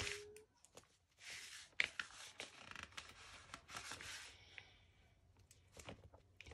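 Faint rustling and crinkling of paper sticker sheets being handled, with short scattered scrapes and light clicks as stickers are peeled and pressed down.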